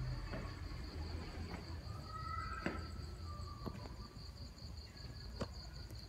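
A cricket chirping in a steady, fast, even trill, with a few faint clicks and a low hum underneath.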